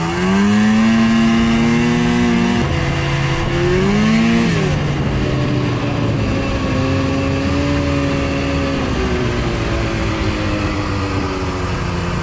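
Side-by-side utility vehicle engine revving up twice, then running at a steadier, lower pitch that slowly falls. The machine is overheating, which the riders put down to snow packed in the radiator.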